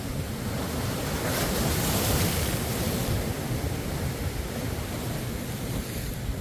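Ocean surf: a wave breaks about a second in, its hiss swelling and then slowly fading, over a steady low rumble of water.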